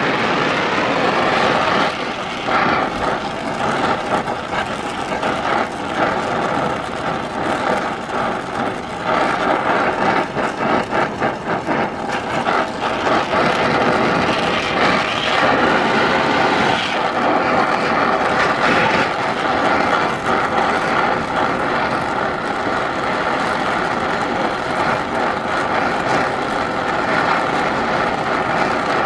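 Gas brazing torch burning with a steady hiss as brass filler is melted onto a steam engine piston to build it up oversize, with a spell of crackling in the first half.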